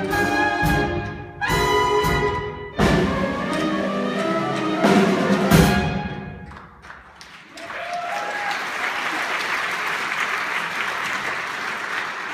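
Theatre orchestra with brass playing the closing chords and accented hits of a song-and-dance number, ending about six seconds in. The audience applauds steadily from then on.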